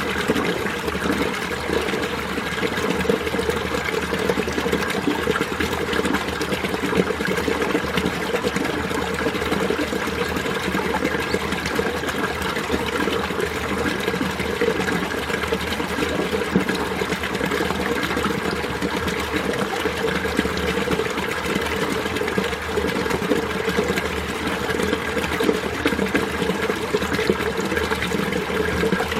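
Winter mountain stream running steadily over rocks, a constant burble of flowing water.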